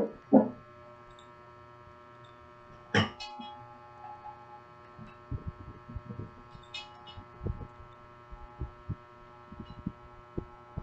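Steady electrical hum with several tones at once. There is a sharp click just after the start, a louder click about three seconds in, and faint low thumps in the second half.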